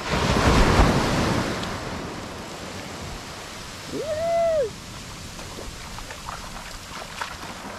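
Ocean surf: a wave breaks and rushes up the beach, loudest in the first two seconds, then settles into a steady lower wash of foam over sand. About four seconds in there is one short call that rises and falls in pitch.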